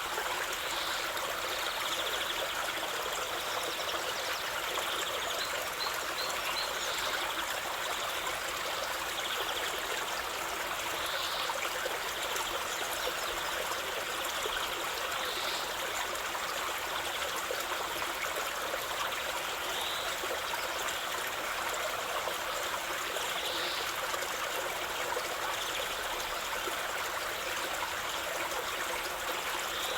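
Running water of a stream, a steady trickling rush with no break, with faint short high sounds every few seconds.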